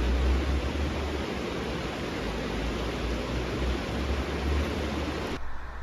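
Flowing river water, a steady rushing noise with a low rumble under it, which cuts off suddenly near the end.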